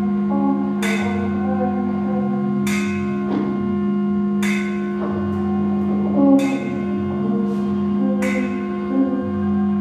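Improvised ensemble music: a steady drone of held tones under bell-like strikes from a hand-held percussion instrument hit with a stick, ringing out about every two seconds, with shifting pitched notes weaving through.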